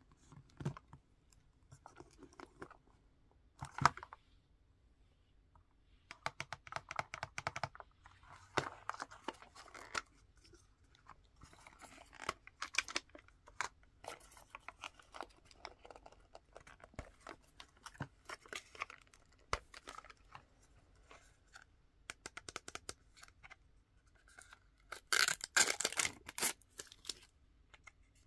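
Hands opening a Mini Brands plastic capsule ball: a fingernail picking and tearing at the sealing sticker, the plastic shell clicking, and paper wrapping rustling and crinkling. The sounds come in short scattered bursts, with a sharp click about four seconds in and a busier, louder stretch near the end.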